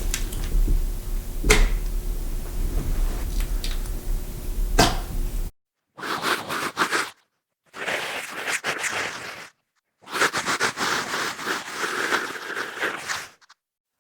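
Raw meat dropped with a couple of wet slaps over a steady low hum. After a brief silence about five seconds in, a woman voices a zombie with aggressive snarls in three harsh bursts separated by short pauses.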